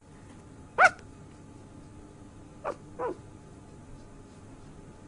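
Sleeping puppy giving three short high yips in its sleep while dreaming, the first and loudest about a second in, then two quicker, softer ones close together.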